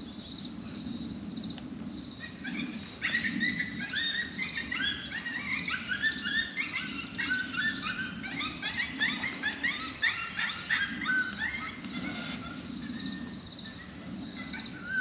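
A group of coyotes yipping and howling together, many overlapping calls starting about two seconds in and dying away near the end, over a steady chorus of crickets.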